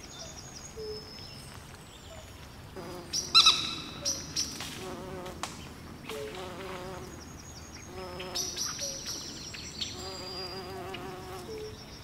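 A fly buzzing near the microphone in repeated spells, over small birds chirping at a pond. A loud, sharp call stands out about three seconds in.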